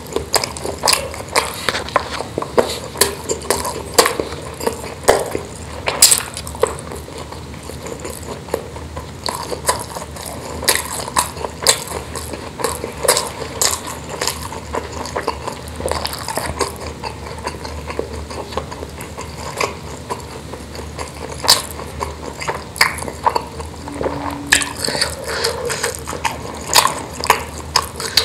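Close-up eating sounds: chewing of spicy meatballs and rice, with sharp mouth clicks and fingers tapping and scraping on a stainless steel tray. The clicks come irregularly, busiest in the first few seconds and again near the end.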